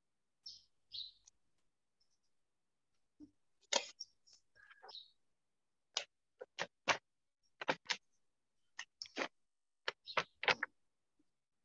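Scattered sharp clicks and knocks, coming thicker in the second half, like small objects or a mouse handled at a desk, heard over a video call, with a few short hissy sounds between them.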